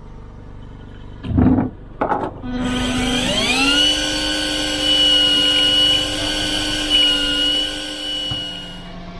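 Electric fishing reel's motor winding in line: a steady whine that rises in pitch as the motor spins up about three seconds in, holds steady, then fades near the end. A couple of brief loud knocks come before it.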